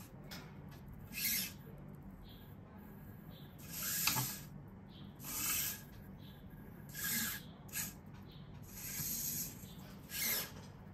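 Petoi Nybble robot cat's small leg servos whirring in about eight short bursts as the robot moves between push-up poses.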